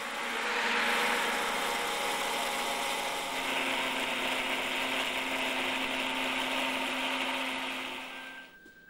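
Drill of a drilling-resistance test rig boring a thin bit into a weathered stone block, running steadily with a grinding whirr that fades out near the end. Past the hard surface crust the bit is running through softened, crumbly stone that gives it little resistance.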